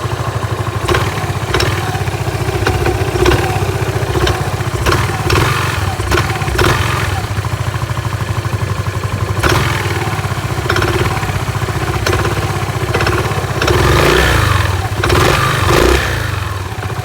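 Yamaha Majesty 400 scooter's single-cylinder engine running, with irregular sharp knocks and clatter over the engine beat and a few revs near the end. The knocking is what the owner takes for a fault in the centrifugal clutch.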